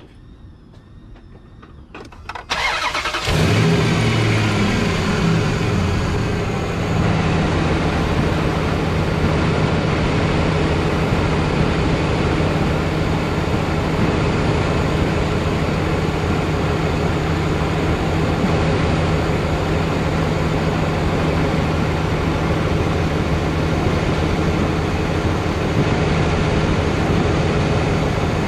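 2003 Dodge Ram 1500's high-mileage 5.7-litre Hemi V8 cold-started: the starter cranks briefly about two seconds in and the engine catches. It runs at a fast idle that settles over the next few seconds into a steady idle.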